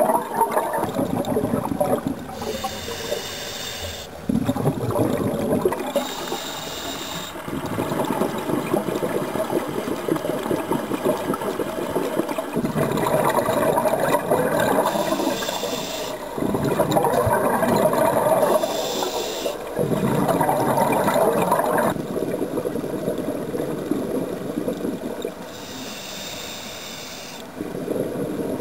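Scuba diver breathing through a regulator: a short hiss on each inhale, then a longer gush of exhaled bubbles, repeating every few seconds.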